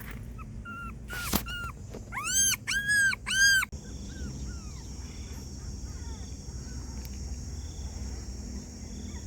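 Dog whining: a few short high whimpers, then three loud, high cries that rise and fall, about two seconds in, followed by fainter whimpers.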